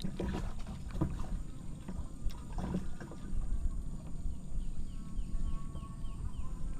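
Outdoor fishing sounds: wind rumbling on the microphone, a few scattered knocks and handling noises in the first half, then a run of short, high, falling chirps, about three a second, in the second half.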